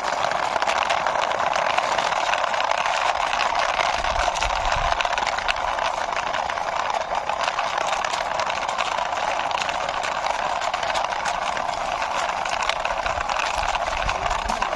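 Plastic wheels of a toy fuel tanker rolling along a rough wall surface as it is pushed by hand: a steady gritty rattle made of many small clicks.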